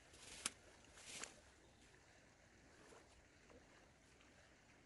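Near silence with a faint outdoor hiss, broken by one sharp click about half a second in and a short rustle just after a second.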